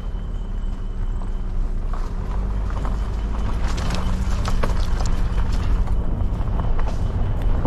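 A vehicle running, a steady low rumble with scattered knocks and rattles between about two and seven seconds in.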